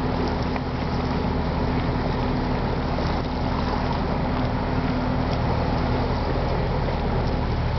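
An engine running steadily with a low hum, over a haze of wind noise; the hum fades near the end.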